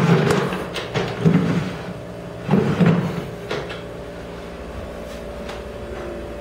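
A handful of knocks and bumps, from handling close to wooden furniture, in the first three seconds or so, then only a steady low hum.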